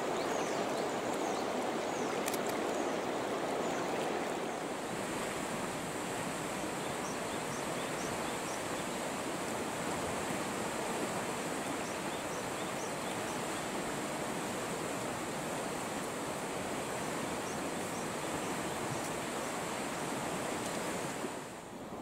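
Mountain river flowing over a riffle: a steady wash of running water, with a few faint high chirps now and then.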